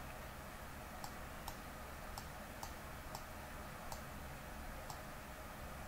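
Computer mouse clicking about eight times at uneven intervals, short sharp clicks over faint room hum.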